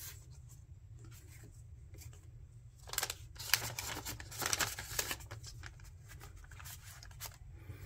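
Paper and cardstock pages and photo cards of a handmade junk journal rustling and flapping as they are flipped and turned by hand, with a cluster of quick swishes about three to five seconds in.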